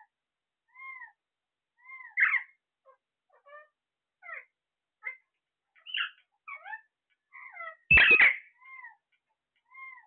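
Caged Alexandrine parakeets calling. A short arching call repeats about once a second, with varied chirps and whistles in between and two loud harsh squawks, about two seconds in and, loudest, near eight seconds.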